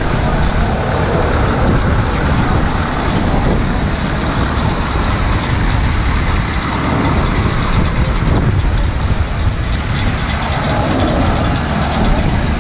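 1928 Holt Model 36 pull-type combine harvesting grain, its reel, cutter and threshing machinery running with a loud, steady mechanical rumble and rattle.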